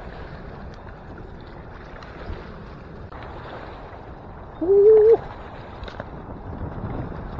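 Wind buffeting the microphone over fast-running river water, a steady rush. About four and a half seconds in comes a single short hoot-like call, rising at its start and then held for about half a second, the loudest sound.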